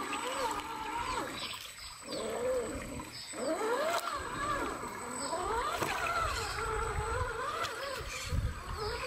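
Whine of a 1/10 scale RC crawler's electric motor and geared drivetrain, its pitch rising and falling with the throttle as the truck crawls through shallow creek water. It briefly cuts out twice in the first few seconds, under low water sloshing around the wheels.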